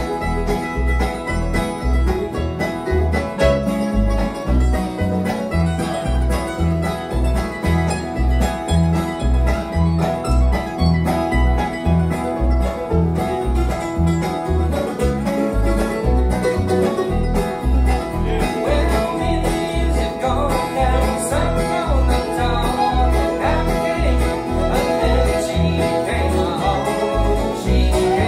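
Acoustic bluegrass band playing an instrumental passage: mandolin, fiddle and acoustic guitar over a steady, even bass pulse.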